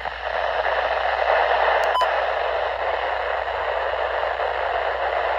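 Radio static: an even, steady hiss from a radio receiver in the pause between broadcast messages, with one short tick about two seconds in.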